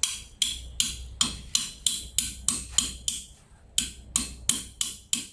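A hammer repeatedly tapping a stainless-steel corner fitting into a handrail pipe. The short, sharp strikes come at about three a second, with a brief pause a little past the middle.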